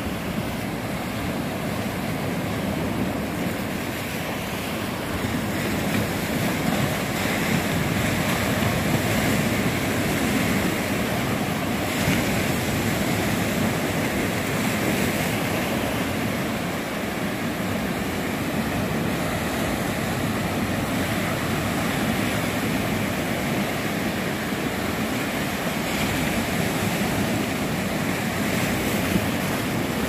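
Small sea waves breaking and washing through shallow water, a steady rush of surf that swells a little in the first several seconds.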